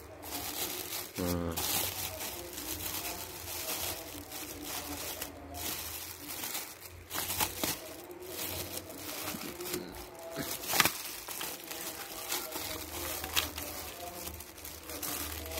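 Thin plastic bag crinkling and rustling as it is worked loose and pulled open around a plastic cup, with irregular sharp crackles, the sharpest a little after halfway.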